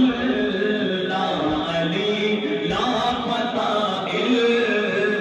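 Male voices singing a devotional chant into microphones in long, wavering held notes. A lead voice is answered by another singer, with no instruments heard.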